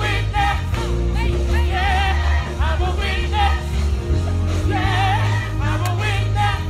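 Music with a heavy, steady bass line and singing with a strong wobbling vibrato, coming in phrases; a group of voices sings along.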